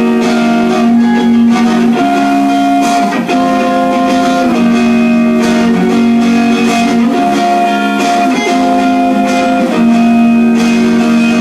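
Instrumental guitar passage of a song without singing: held chords that change about every two seconds.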